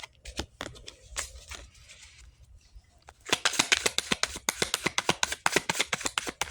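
A deck of reading cards being shuffled by hand: a few scattered card flicks at first, then from about three seconds in a rapid run of snapping clicks, about eight to ten a second.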